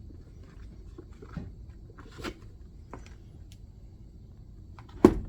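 Light handling clicks and rustles, then a sharp loud knock near the end.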